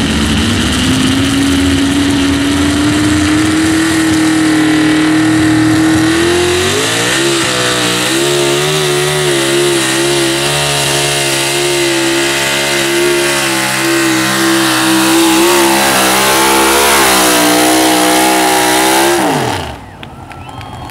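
Supercharged super stock two-wheel-drive pulling truck's engine at full throttle under load, pulling the sled. The pitch climbs over the first few seconds, jumps up about six and a half seconds in, wavers up and down through the pull, then falls away sharply about nineteen seconds in as the engine comes off the throttle.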